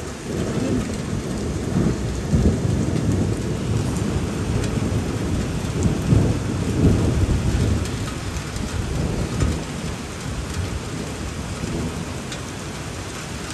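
Heavy rain pouring steadily, with a low, uneven rumble that swells over the first several seconds and then eases off.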